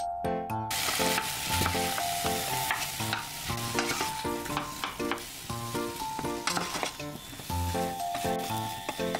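Boiled potato chunks sizzling and hissing in a hot saucepan as they are stirred and scraped with a wooden spatula, driving off the leftover water. The sizzling starts about a second in, over light background music.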